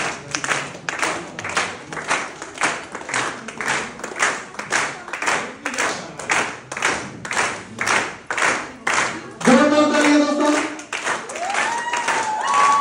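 A crowd clapping together in a steady rhythm, about three claps a second. Near the end the clapping stops and loud shouts break out, then a long high cry that rises and holds.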